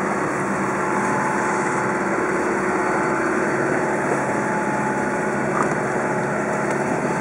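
Steady hum of the boat's engine under way, with a broad rush of wind and sea around it.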